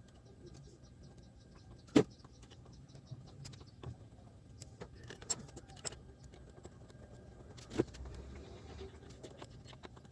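Hands working with a cable and parts inside a speaker cabinet: scattered light clicks and taps, with two sharper knocks, one about two seconds in and one near eight seconds.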